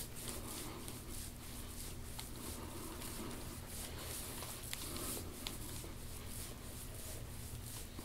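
Faint rubbing and rustling of an elbow pressing and sliding over the muscles of a bare back during deep-tissue massage, with a few small clicks over a steady low hum.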